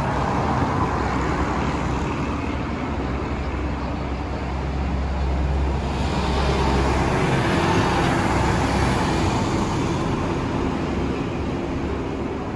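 Road traffic: a motor vehicle's steady rumble swells to its loudest about two-thirds of the way through, then eases off.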